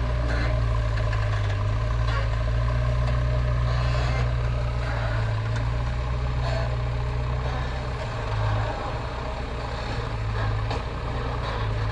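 Diesel engine of a 76 hp JCB backhoe loader running steadily under work, its note dipping briefly about eight seconds in and then picking up again, with a few faint knocks.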